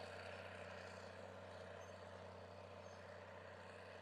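Faint, steady engine of a Minneapolis-Moline four-wheel-drive tractor pulling a tillage implement through a field, slowly getting quieter.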